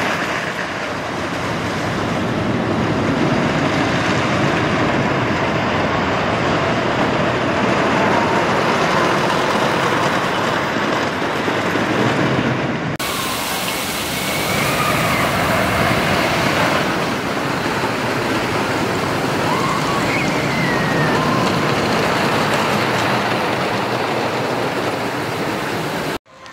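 Custom Coasters International wooden roller coaster train running over its wooden track: a loud, steady rumbling roar. The sound changes abruptly about halfway through and cuts out briefly at the very end.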